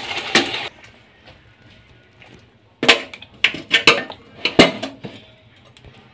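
Metal kadai clinking and scraping against a steel bowl as thick chutney is scraped out of it, several sharp knocks between about three and five seconds in. Before that, a short stretch of stirring noise stops abruptly under a second in.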